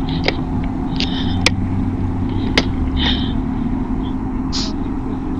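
A car engine idling close by, a steady low hum over road rumble, with a few sharp clicks in the first three seconds.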